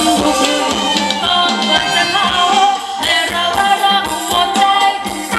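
Thai ramwong dance music played by a band, with a steady beat and a melody line.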